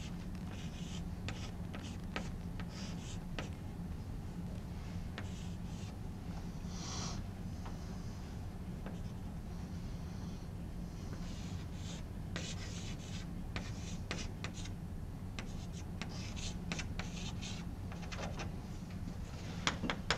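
Chalk writing on a blackboard: short scratches and taps of chalk strokes in irregular runs, over a steady low hum.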